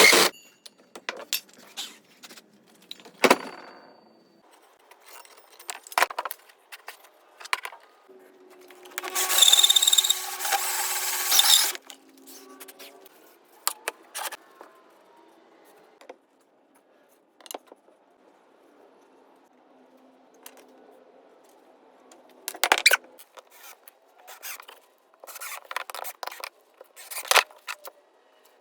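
Wood pieces being handled and worked: scattered knocks and clicks, with a loud scraping or rubbing burst lasting about three seconds roughly a third of the way in.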